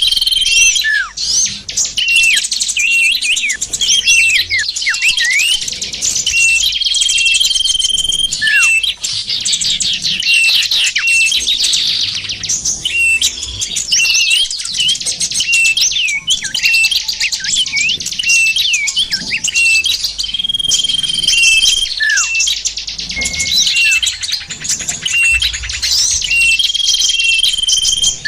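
Dense chorus of many small songbirds chirping and twittering continuously, a bird-lure (pikat) call for attracting small birds. A held high whistle and a few sharply falling notes recur every several seconds through the busy twittering.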